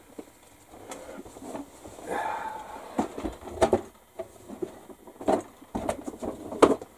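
Irregular knocks, clicks and a brief scrape of small objects being handled and set down on a hobby workbench.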